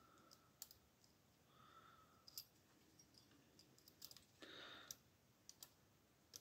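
Faint, irregular metallic clicks from a lock pick and tension wrench working the pin stack of a Yale TS007 euro cylinder lock.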